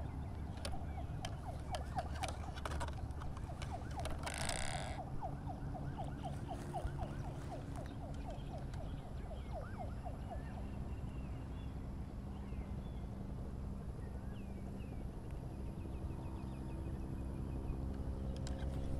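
Outdoor ambience with a low rumble, likely wind on the microphone. Through the first half an animal calls in a rapid run of short notes, several a second, slowly falling in pitch. There is a brief hiss about four seconds in, and faint chirps come later.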